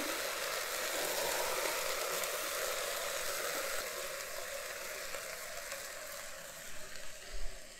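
Washed toor dal, vegetables and spices sizzling in hot oil in a pressure cooker while being stirred with a spatula. The sizzle slowly fades, with a couple of light knocks near the end.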